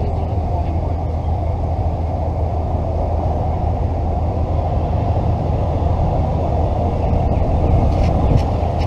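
Steady low engine rumble, swelling slightly near the end.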